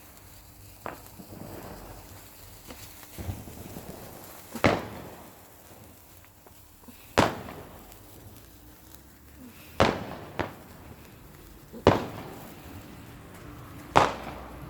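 Fireworks going off in a series of sharp bangs, six in all, mostly two to two and a half seconds apart, each with a short echoing tail.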